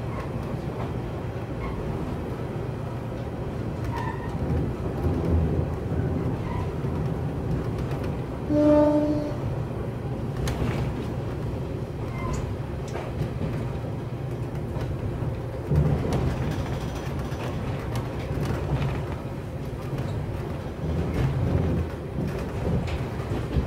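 Running noise heard inside a KiHa 28 diesel railcar: a steady low rumble from its DMH17 diesel engine and the wheels on the rails. About nine seconds in, a short single-pitched horn blast sounds, and a brief thump comes near sixteen seconds.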